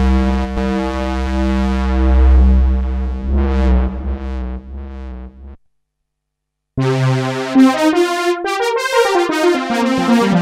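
Novation Peak hybrid polyphonic synthesizer: a held low patch whose filter cutoff is being turned up, fading out about halfway through. After a second of silence, the factory preset 'Thick Polysaw' comes in with a quick run of short notes that climbs and then falls.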